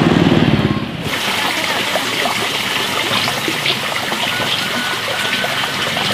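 A motorbike engine running, cut off suddenly about a second in. Then the steady rush of trickling, flowing water, with small high chirps and ticks over it.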